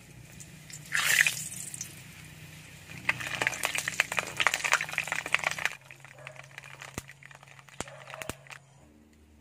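Annatto seeds frying in hot cooking oil in an aluminium wok: a loud burst of sizzling about a second in, then dense crackling and popping that eases off about six seconds in.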